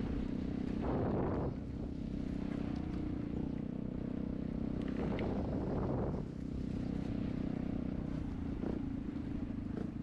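A motor vehicle engine running steadily, with two louder rushing swells about a second in and around five to six seconds in.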